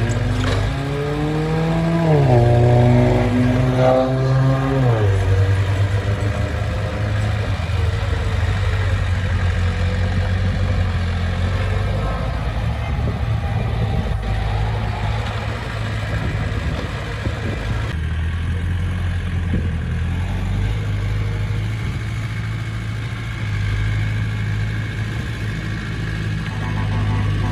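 Heavy construction machine's diesel engine revving up, rising in pitch twice in the first five seconds and dropping back, then running steadily under load with a low rumble.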